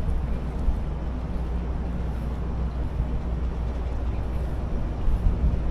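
Low, steady rumble of the Great Lakes ore freighter Arthur M. Anderson as its stern passes close by, with wind buffeting the microphone near the end.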